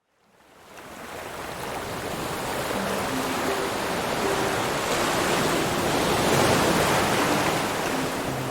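Steady rushing water fading in over the first two seconds and swelling slightly past the middle, with a few soft, low held music notes faintly underneath.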